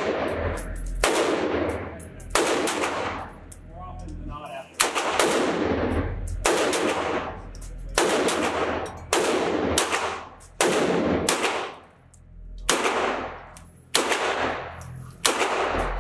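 Beretta U22 Neos .22 LR semi-automatic pistol firing slow, aimed single shots, about ten of them, roughly one every second and a half. Each crack has a long echo off the concrete walls of the indoor range.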